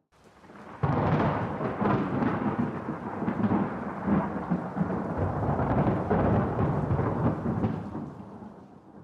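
A peal of thunder: it breaks suddenly about a second in, rumbles for several seconds, and dies away near the end.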